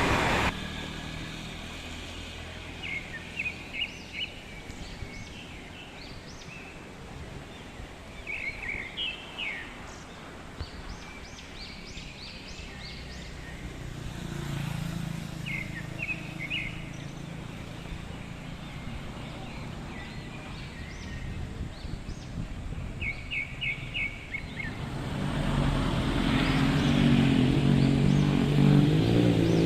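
A flock of birds calling in short clusters of high, quick chirps, several times over. Between them, motor vehicles pass on the road, one engine growing louder near the end.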